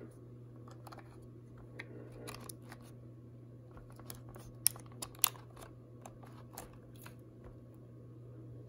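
Small plastic clicks and rattles of a camcorder being handled as an SD card is pushed into its spring-loaded slot, with two sharper clicks about halfway through.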